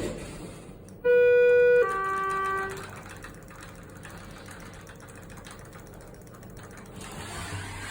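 Schindler HT 330A elevator chime: two electronic tones, a higher ding and then a lower dong, about a second in, each under a second long. After it comes a quieter steady hum.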